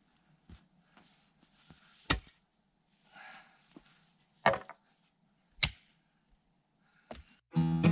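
Irregular sharp knocks: four loud strikes one to two and a half seconds apart, with fainter taps and a brief rustle between them.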